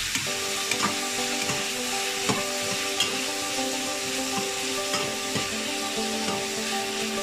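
Diced onion and bell peppers sizzling in hot oil in a metal kadhai while a metal spatula stirs them, with irregular scrapes and taps of the spatula against the pan.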